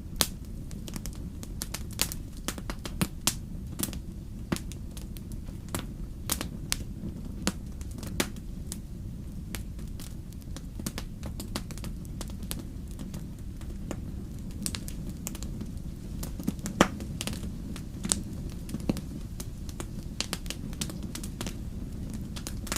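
Wood fire crackling, with irregular sharp pops and snaps over a steady low rumble; one pop about two-thirds of the way through is the loudest.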